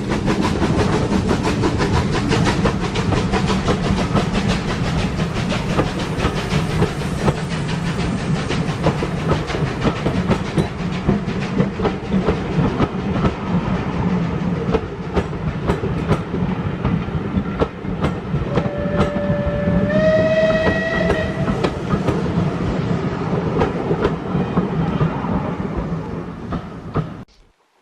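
Steam-hauled train running with steady wheel clatter over the rail joints. About two-thirds of the way through, a locomotive whistle sounds for about three seconds, stepping up slightly in pitch partway. The sound cuts off suddenly near the end.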